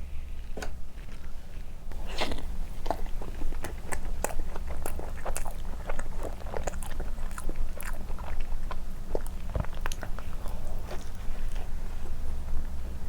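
Close-miked biting and chewing of soft condensed-milk cream bread dipped in milk: irregular bites and mouth smacks that start about two seconds in.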